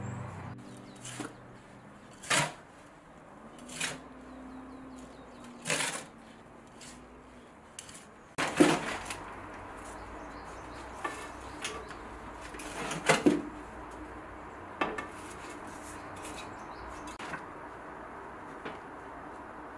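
Irregular knocks and light clinks of hands working incense paste into a hinged aluminium incense-cone mould, with about a dozen sharp taps, the loudest near the middle.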